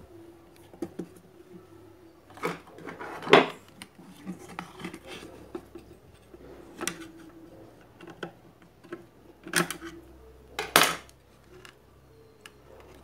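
Small metal hand tools clinking and tapping on a workbench: several sharp clinks, the loudest about three and a half seconds in, and a longer clatter near eleven seconds.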